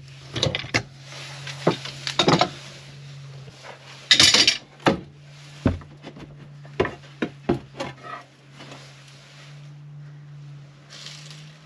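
Clinks of a metal bar clamp and knocks of timber being handled: scattered sharp clicks and knocks, with a louder clatter about four seconds in, over a steady low hum.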